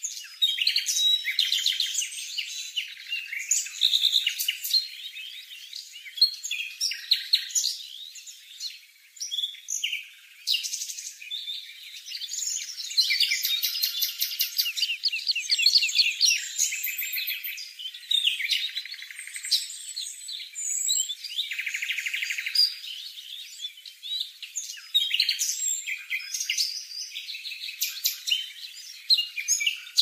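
Fledgling cuckoo begging with rapid, high-pitched, repeated calls and trills while a small foster-parent bird feeds it.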